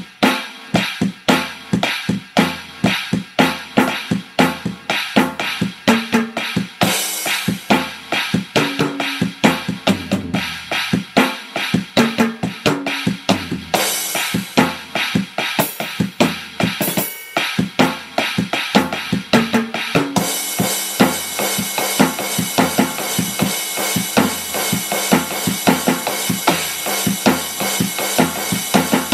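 Drum-kit sounds from a Yamaha tabletop electronic drum pad, played fast with wooden sticks: rapid snare, tom and bass-drum hits. Cymbals wash in a couple of times, then ring without a break over the last third.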